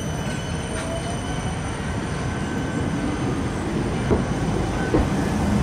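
Tram rolling past close by: steady rumble of steel wheels on the rails with a thin, high-pitched wheel squeal, and two short knocks about four and five seconds in.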